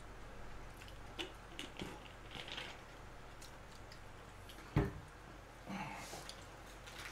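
Plastic cola bottle handled on a desk: a few light clicks and crinkles as the cap is worked, then a single thump about five seconds in as the bottle is set down on the table.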